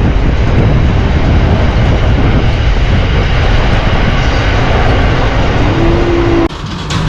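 Loud, steady roar of a vehicle on the move, heavy in the low end, dropping away about six and a half seconds in.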